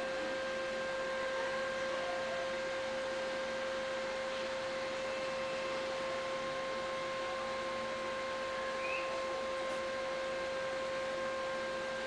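A steady hum at one unchanging pitch with fainter overtones, over a constant hiss.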